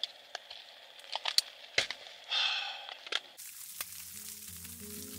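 Scattered sharp clicks and a short rustle of tent fabric and gear being handled, then soft background music with held low tones starts about three and a half seconds in.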